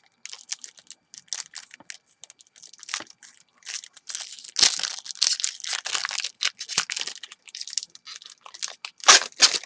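A baseball card pack's wrapper being torn open and crinkled by hand, a dense run of crackling rustles that is loudest about halfway through and again near the end.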